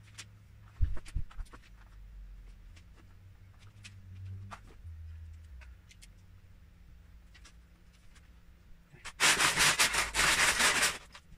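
Hand rummaging through a plastic tub of loose Lego bricks: a loud clatter of many pieces for about two seconds near the end. Before it, a few sharp clicks as bricks are handled and pressed together.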